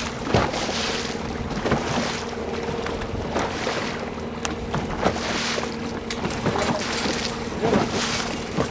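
Wind buffeting the microphone in gusts over the steady hum of the fishing boat's outboard motor running at trolling speed.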